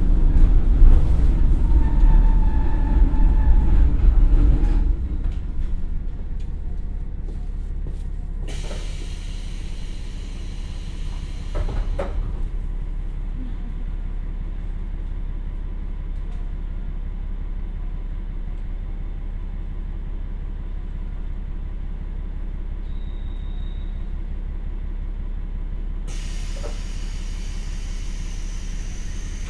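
KiHa 47 diesel railcar with a Komatsu engine slowing to a stop, heard from inside the car. The low running rumble drops about five seconds in, leaving the engine idling steadily at standstill. Two long hisses come through, one about eight seconds in and one near the end.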